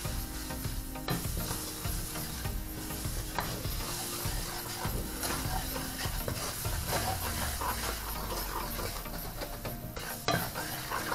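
Butter, oil and flour sizzling in a frying pan as a roux, stirred continually with a wooden spoon that scrapes and swishes across the pan bottom. The roux is bubbling up foamy as it cooks.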